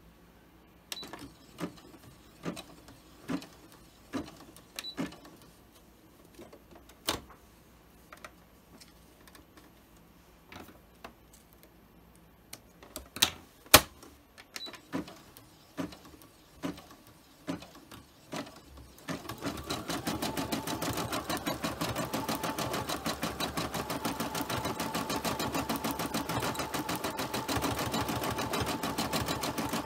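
Scattered clicks and knocks of hands handling the embroidery machine and hoop. About two-thirds of the way in, the machine starts stitching out the design: a fast, steady needle rattle.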